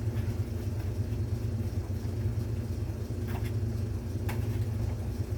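Steady low background hum, with two light clicks about three and four seconds in from plastic parts being handled as a bag is fitted inside a Hoover Elite upright vacuum.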